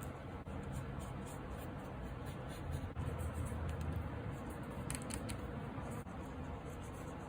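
Paper being handled, with light rustling and a few brief clicks about five seconds in.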